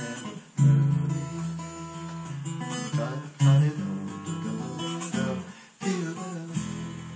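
Acoustic guitar playing the song's closing passage: a barre chord with the open B and high E strings ringing over a picked bass line, notes plucked and lightly strummed in a slow phrase.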